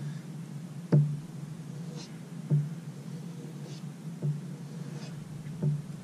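Knife blade being stroked along a leather strop loaded with compound: faint swishes of steel on leather, with a soft knock of the blade or strop against the table every second or two.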